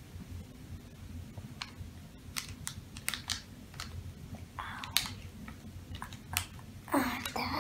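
Thin plastic sachet crackling and clicking in the hands as it is squeezed out over the tree's base, in a string of separate sharp clicks.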